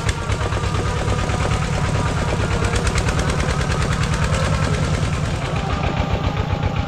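A vehicle engine running steadily, a rapid, even train of firing pulses many times a second.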